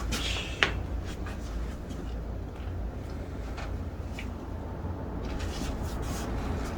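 A joint cracking once, sharply, about half a second in, during a chiropractic adjustment. Fainter short clicks and rustling of movement follow over a steady low hum.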